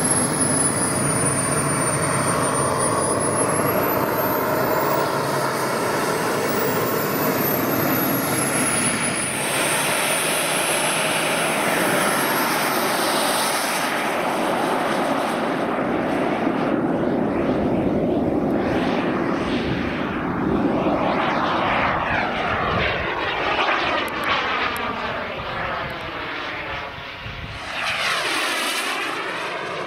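KingTech K-140 model jet turbine powering a CARF Ultra Flash RC sports jet in flight: a steady jet rush with a high turbine whine that falls and rises in pitch over and over as the plane passes back and forth. The sound swells and dips with sweeping changes in tone as it flies by, briefly quieter near the end.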